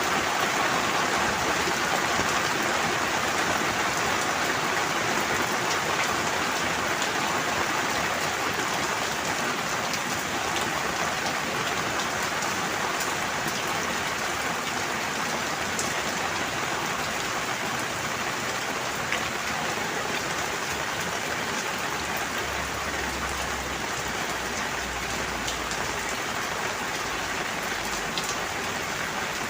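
Steady rain falling on a surface, an even hiss with scattered sharper drop ticks, and a faint low rumble in the second half.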